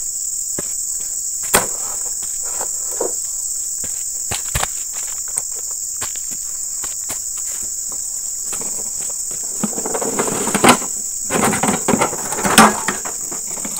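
A steady, shrill insect chorus, with scattered knocks. From about eight and a half seconds in there is louder rustling and a run of thumps as the worker handles the wheelbarrow and fruit bunches and walks off.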